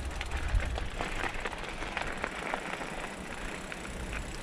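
Mountain bike rolling along a gravel and dirt trail: tyres crunching on grit with frequent small irregular clicks and rattles from the bike, thinning out about halfway.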